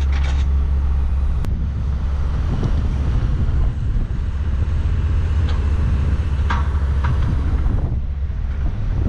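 Tractor engine running steadily under load, a deep even hum, with wind buffeting the microphone.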